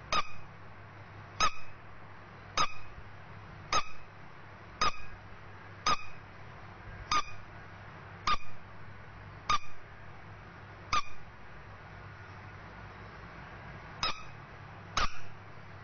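Yellow rubber duckling squeeze toy squeaking as it is pressed by hand, each squeak in two parts, about one a second. The squeaks pause for about three seconds, then two more come near the end.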